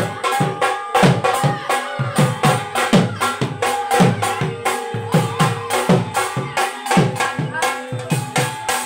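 Loud, fast folk drumming: a steady run of beats in which low, booming drum strokes slide down in pitch, several to the second, with a held melody line sounding over them.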